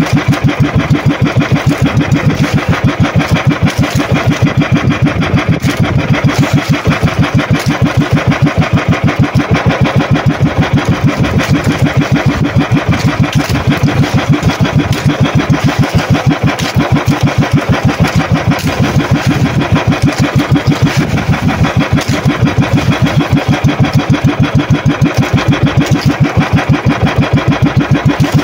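The outrigger fishing boat's engine running steadily, with a loud, even, rapid pulse.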